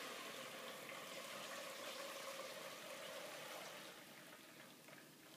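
Blended rice-and-cinnamon horchata mixture poured from a blender jar through a strainer into a mixing bowl: a steady liquid stream that thins and fades near the end.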